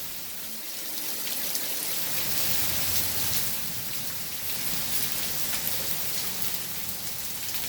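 Rain mixed with hail falling and striking surfaces: a steady hiss with scattered sharp ticks.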